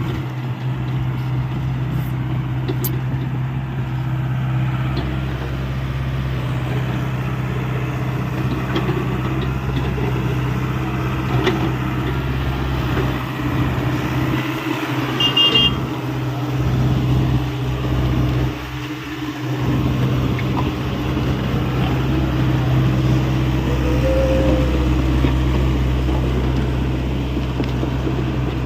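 Hyundai 85A excavator's diesel engine running steadily at working speed, with brief dips in the low rumble about halfway through.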